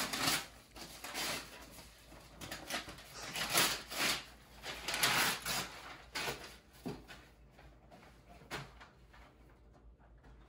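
Wrapping paper tearing and crinkling as a present is unwrapped, then a cardboard gift box being opened and handled. Irregular rustles, denser in the first six seconds and sparser toward the end.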